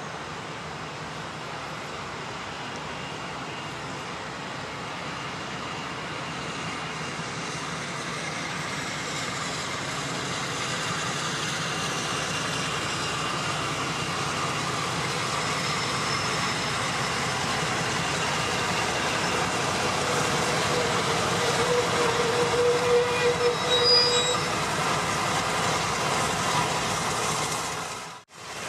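Class 52 'Western' diesel-hydraulic locomotive D1015 Western Champion, with its twin Maybach diesel engines, running in along the platform at the head of its coaches, growing steadily louder as it approaches. A brief metallic squeal from the wheels or brakes comes near the end as it slows, and the sound cuts out abruptly at the very end.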